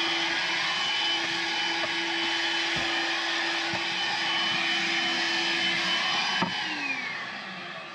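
Makita cordless handheld vacuum cleaner running steadily with a constant motor whine over the rush of air. About six seconds in, a click is heard and the motor spins down, its whine falling and fading.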